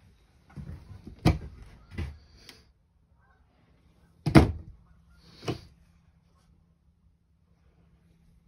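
Wooden cabinet doors being opened and shut: a few separate knocks and thuds, the loudest about four seconds in.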